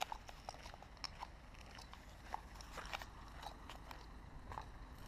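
Faint footsteps: irregular short clicks and crunches over a low steady rumble.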